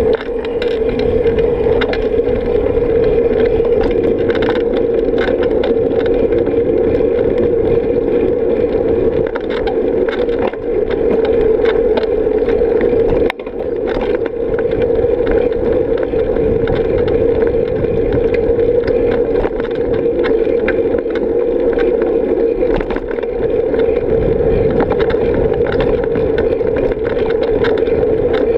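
Steady wind and riding noise on a bicycle-mounted action camera moving along a paved path, with frequent small rattles and clicks from the bike over the pavement. There is a sharp knock about 13 seconds in.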